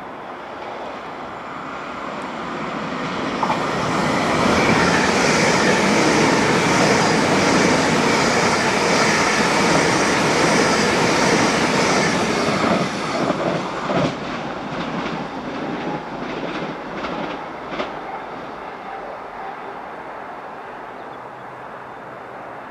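Greater Anglia Class 720 electric multiple unit passing the platform: a rush of wheels on rail that builds over a few seconds and stays loud for about eight seconds. Then comes a run of wheel clicks over rail joints as the last coaches go by, and the sound fades as the train draws away.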